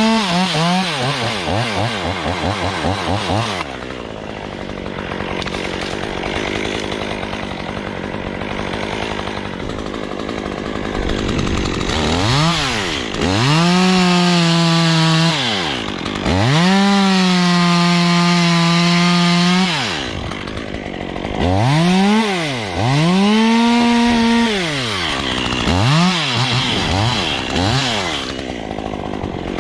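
Two-stroke chainsaw idling and blipping, then pulled up to full throttle for several cuts of two to three seconds each, dropping back to idle between them.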